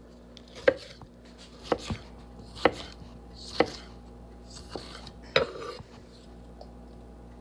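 Chef's knife chopping a sweet pepper on a wooden cutting board: separate sharp knocks of the blade on the board, unevenly spaced at roughly one a second.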